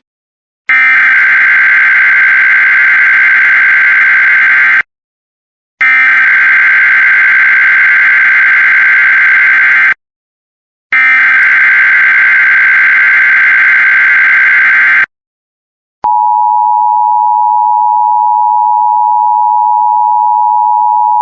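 Emergency Alert System SAME header: three data bursts of about four seconds each, a second apart. The steady two-tone attention signal (853 and 960 Hz) follows from about three quarters of the way through. Together they open a new alert, a child abduction emergency.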